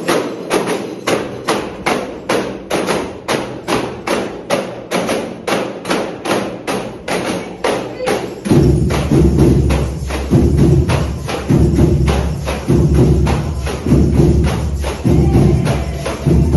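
Percussion band rehearsing: hand percussion struck in a steady, even beat of about three strokes a second. About halfway through, a deep pulsing beat joins underneath and carries on.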